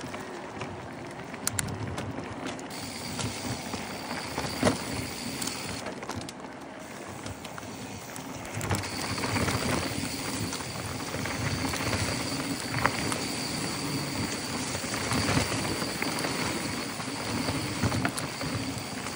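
Mountain bike riding down a dry dirt trail: tyres crunching over dirt and gravel and the bike rattling over bumps, with sharp knocks from rocks, getting louder and rougher about halfway through.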